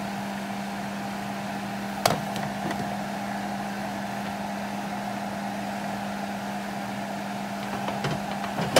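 A glass lid is set down on a stainless steel soup pot with one sharp clink about two seconds in, over a steady mechanical hum. A few light knocks follow near the end.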